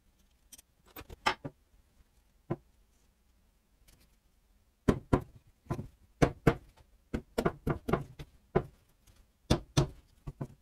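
Rubber mallet knocking on the cylinder head of a Kawasaki KM90's 90cc engine, a rapid series of sharp blows starting about halfway through, to free the head from the barrel. Before the blows come a few light clicks of tool handling.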